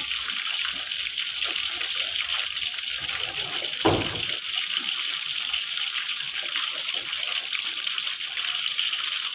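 A kitchen knife cuts on a wooden chopping board, making faint repeated taps over a steady hiss. There is a single louder knock about four seconds in.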